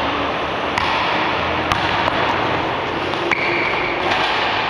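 Basketball bouncing on a hardwood gym floor: a handful of sharp, irregularly spaced thuds over a steady background hiss.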